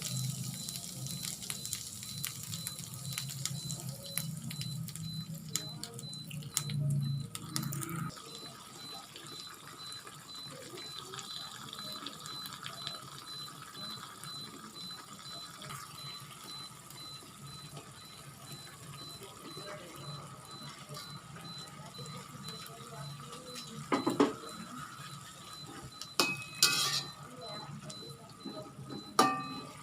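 Steady hiss of food cooking in a pan on the stove, with a few clinks of a utensil against the pan near the end.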